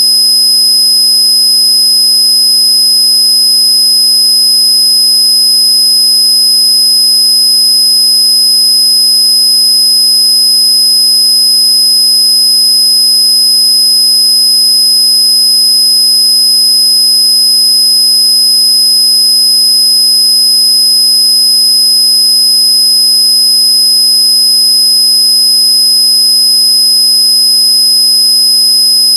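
Synthesized electronic tone meant for annoying noisy neighbours: a loud, unchanging low buzz with a piercing high-pitched whine on top.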